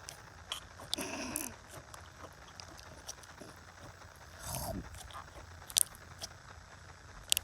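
Slime being scratched and squeezed by hand: scattered sharp sticky clicks and crackles, with two squelchy fart-like air pops, about a second in and about four and a half seconds in, the second one sliding down in pitch.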